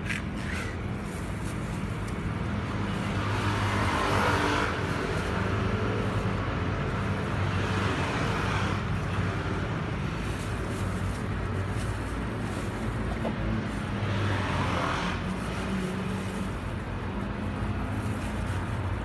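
Motor vehicle engine running with a steady low hum, with three louder swells of noise, at about four, eight and fifteen seconds in, that rise and fall like vehicles passing by.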